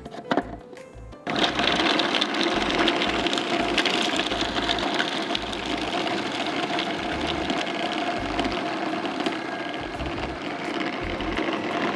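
Electric blender switched on about a second in and running steadily with a motor hum, grinding pitted dates, cashews and milk into a thick paste.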